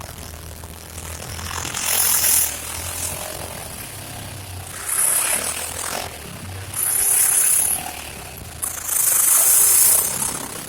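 Honda Pioneer 700-4 side-by-side's single-cylinder engine running low and steady, broken four times by a loud burst of hissing, scraping noise, the last burst the longest.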